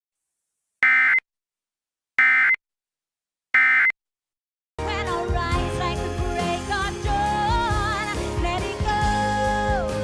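Three short bursts of Emergency Alert System end-of-message data tones, evenly spaced about a second and a half apart, marking the end of the alert. Music with singing starts about halfway through.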